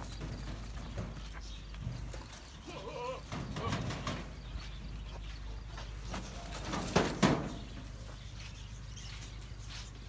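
Goats bleating in a pen, with a few short wavering calls about three to four seconds in and a louder pair of sounds about seven seconds in.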